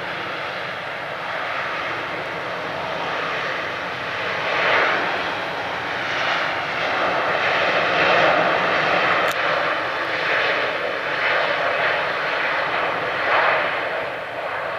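Airbus A350-900's Rolls-Royce Trent XWB jet engines at take-off thrust during the take-off roll. A steady jet roar grows louder about four seconds in, then swells and fades in waves as the airliner speeds down the runway and rotates.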